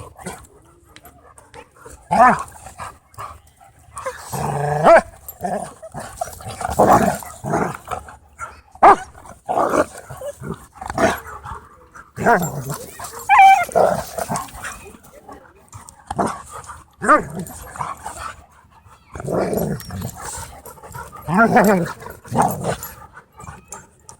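Dogs play-fighting, with growls, barks, yips and odd whining noises coming in irregular bursts every second or two.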